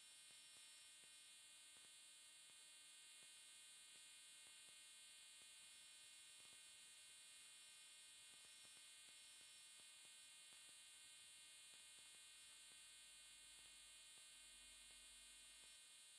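Near silence: only a faint steady electrical hum.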